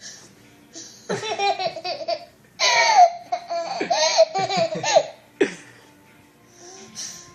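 A young child laughing in high-pitched bouts: one from about a second in, a longer run of squealing laughs a moment later, and a short last one after that.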